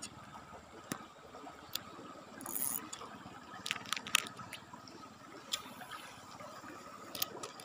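Fast river current lapping and trickling against a wooden boat's hull, with scattered small clicks and taps, the loudest a little past the middle.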